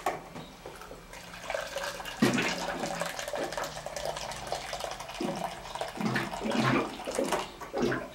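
Water running from a bottled-water cooler's tap into a cup, the sound rising and falling unevenly.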